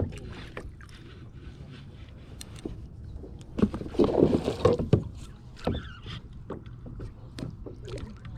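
Kayak on the water: paddle strokes and water sloshing against the hull, with scattered light knocks, the loudest stretch about halfway through.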